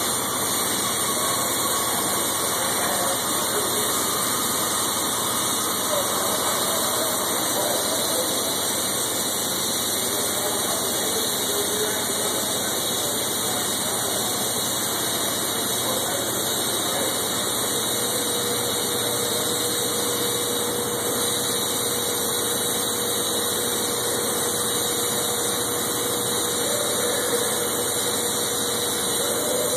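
Steady hiss and crackle of a welding arc on 6-inch schedule 20 stainless pipe, run hot, over the steady running of an engine-driven welder. A faint steady tone comes in about two-thirds of the way through.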